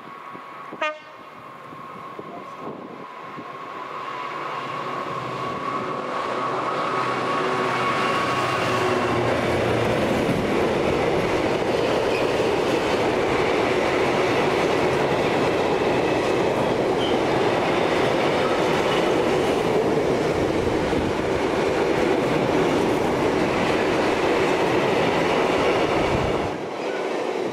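Class 66 diesel locomotive hauling a long train of tank wagons past: the engine grows louder as it approaches over several seconds, then the steady rumble and wheel noise of the wagons going by. The noise drops away sharply near the end.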